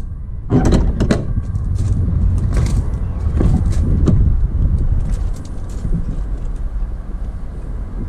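Wind buffeting the microphone as a low rumble, with clicks and knocks as the Nissan NT400 Cabstar's passenger cab door is unlatched and swung open, about three to four seconds in.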